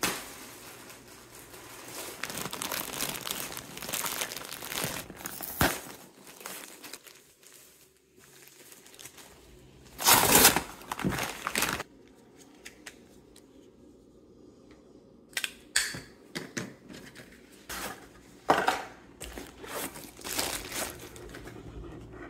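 Plastic mailer and paper packaging crinkling and tearing as parcels are unwrapped, with a loud burst of rustling about ten seconds in and short crinkles and clicks in the second half.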